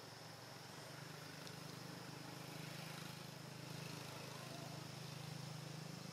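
Faint steady low hum with a constant high-pitched insect drone above it, and a faint short chirp about four and a half seconds in.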